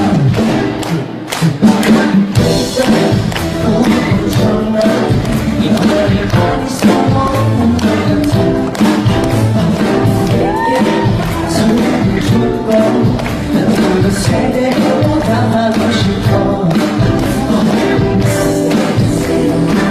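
Loud pop song with singing over a steady dance beat, played live at a K-pop performance.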